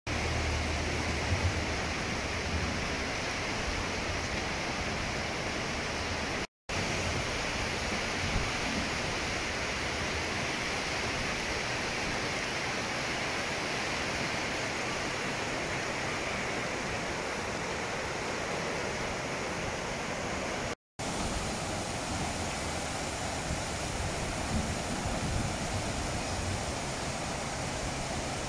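Flash-flood torrent of muddy water rushing down a wadi over rocks: a loud, steady roar of water. It breaks off for an instant twice, about 6.5 and 21 seconds in.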